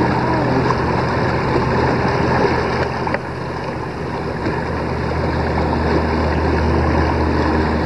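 A small boat's motor running steadily under way, with water rushing past the hull and wind on the microphone.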